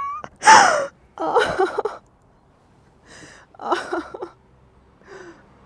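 A man's short wordless vocal sounds, a few pained exclamations and groans, the loudest about half a second in with a falling pitch, from having just hit his head.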